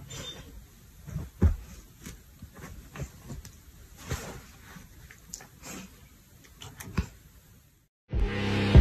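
Quiet room with faint rustling and a few light thumps as a dog and a cat shift against each other on a cushioned couch. Music with a beat starts near the end.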